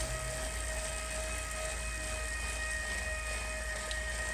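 Wahoo Kickr gen 3 direct-drive smart trainer running under a rider at about 30 km/h: a steady whine of several held tones over a low hum, pretty quiet as far as smart trainers go.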